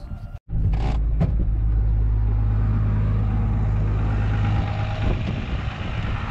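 Dodge Ram 2500 diesel pickup engine idling steadily, close by. There are two short knocks about a second in.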